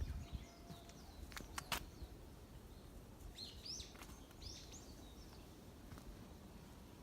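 A bird gives a few short chirping calls about halfway through, over faint outdoor background noise. A couple of sharp clicks come a little earlier.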